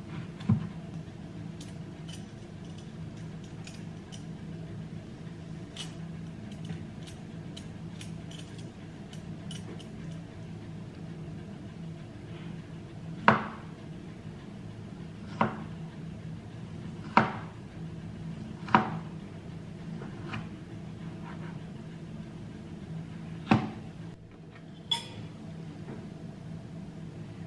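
Chef's knife cutting through kiwi fruit and knocking on a plastic cutting board: a handful of sharp, separate knocks, most of them in the second half, over a steady low hum.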